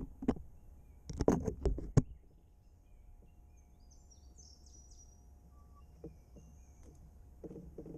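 Sharp knocks and rustles, a quick cluster of them about a second in, as overhanging branches brush and strike the wooden skiff's sail and rig. A small bird then chirps a short run of high, falling notes.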